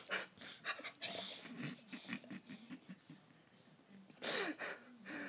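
A dog in a fit of repeated sneezing: short, sharp sneezes with softer breaths between them, the loudest sneeze coming about four seconds in.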